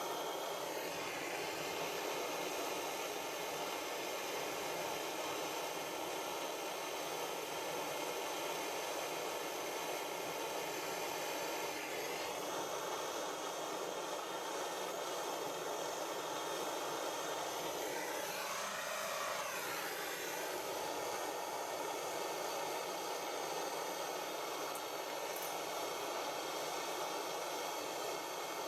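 Gas blow lamp burning with a steady hiss, heating a joint to flow silver solder. The sound wavers briefly about two-thirds of the way through.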